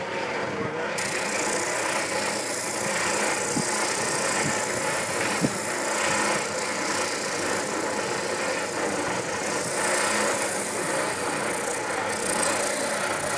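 Delta benchtop spindle sander running with a wooden workpiece pressed against its sanding drum: a steady motor hum with the hiss of abrasive on wood, which grows brighter about a second in. One sharp tick about five and a half seconds in.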